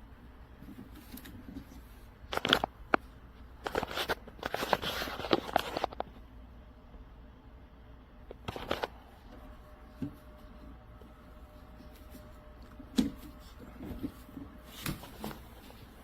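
Intermittent rustling with sharp clicks and knocks, as things are handled, in several separate bursts.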